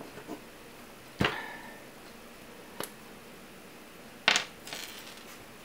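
A few sharp knocks and clicks of small hard objects being handled on a workbench. One strong knock about a second in leaves a brief ringing tone, and a short, harsher clatter comes about four seconds in.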